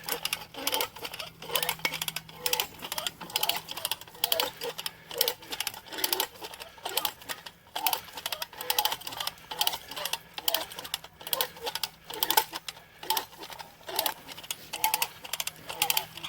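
Hand-cranked come-along ratchet clicking rapidly as it is worked, its pawl snapping over the teeth several times a second while the cable takes up the strain of pulling a small tree over by its roots.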